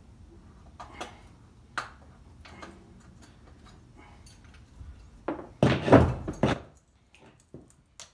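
Farrier work on a draft horse's hoof resting on a metal hoof stand: a few light taps and clicks, then a cluster of heavy knocks and thuds about five and a half to seven seconds in.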